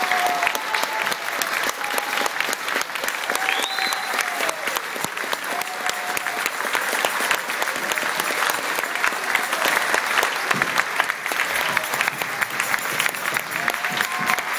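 Audience applauding steadily, the clapping dense and even, with a few short calls and one rising whistle heard over it.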